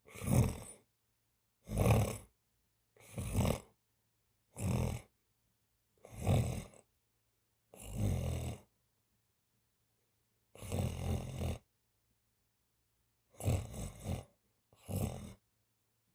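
A napping cat snoring, one snore with each breath, about every one and a half seconds, nine in all, with one longer pause about nine seconds in.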